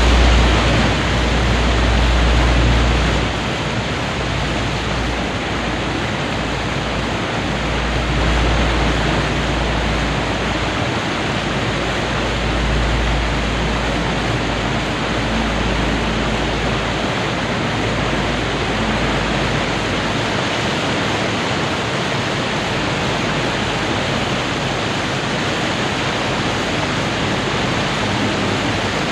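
Water pouring over a weir in full flood: a dense, steady rush of falling water with a deep rumble underneath that swells and fades through the first twenty seconds or so, then drops away.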